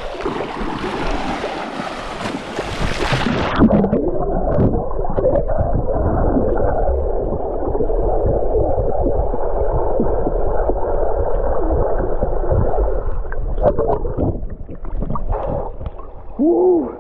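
Splashing as swimmers go into a swimming pool. About three and a half seconds in the sound turns muffled, as heard from under the water: a dull rushing with gurgling bubbles.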